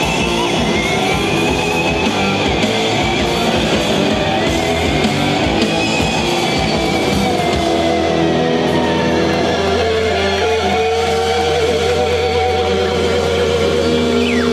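Live psychedelic rock band playing loud, with distorted electric guitars and drums. A little past halfway the dense playing drops away, leaving a steady low drone and held, wavering guitar tones, as at the close of a song.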